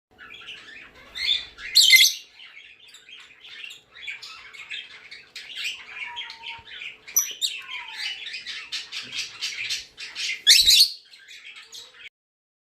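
Pet lovebirds chattering rapidly, with loud shrill squawks about two seconds in and again near the end; the chatter stops suddenly just before the end.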